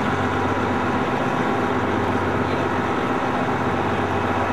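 Steady drone of a tour bus's engine and running gear, heard from inside the cabin.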